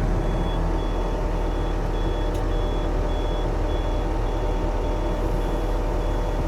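Backup alarm beeping steadily, a high tone about one and a half to two times a second, over the steady running of a Yanmar diesel machine's engine: the machine is in reverse.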